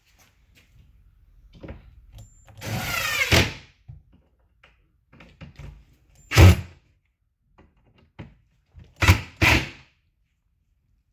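A cordless drill runs for about a second, rising in pitch as it drives a screw into a cabinet bracket. A few seconds later comes a single sharp knock, and near the end two more knocks in quick succession.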